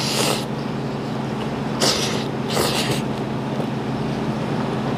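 A man slurping ramen noodles off chopsticks in three short, noisy sucking slurps: one at the start, then two close together about two seconds in. A steady low hum sits beneath.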